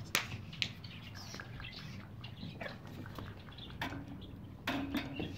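Faint bird chirps among scattered light clicks and taps, with a brief louder sound near the end.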